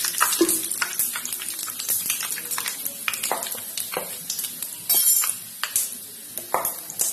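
Whole panch phoron seeds frying in hot mustard oil in a pan, crackling and sizzling. The crackle slowly dies down, with one brief harsher sound about five seconds in.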